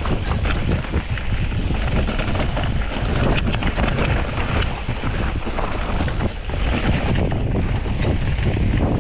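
Wind buffeting the microphone of a camera riding along on a Specialized Turbo Levo e-bike on a dirt trail, over steady tyre noise. Many small, scattered clicks and rattles, from gravel or the bike itself, come through on top.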